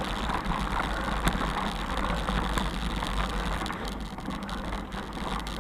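Bicycle tyres rolling over a gravel and dirt track: a steady rumbling, crunching noise with a few small clicks and rattles.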